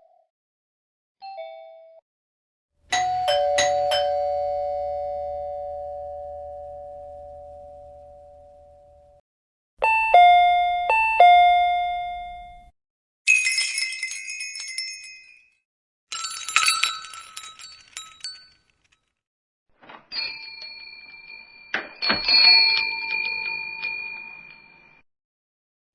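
A run of doorbell sound effects: a short two-note ding-dong, a slow ding-dong that rings out for several seconds, and a quick ding-dong played twice. These are followed by three shop-door chimes, clusters of small bells jingling as a door opens.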